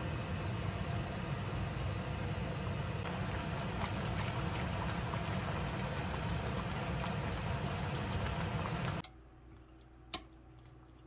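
Kimchi and mackerel stew boiling hard in a stainless pot on a gas stove: a steady bubbling with small pops. It cuts off suddenly about nine seconds in, and a second later there is a single sharp snip of kitchen scissors cutting the kimchi.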